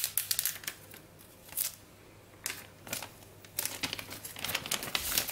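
Clear plastic shrink-wrap film on an iPhone box crinkling in irregular bursts as fingers pick at and peel it, with a short lull partway through.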